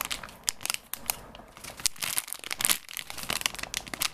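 Clear plastic packaging bag crinkling in quick, irregular crackles as hands squeeze a foam squishy toy through it.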